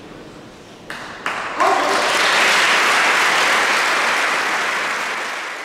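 A large group applauding: a few first claps about a second in, then full, dense applause that holds and starts to fade near the end.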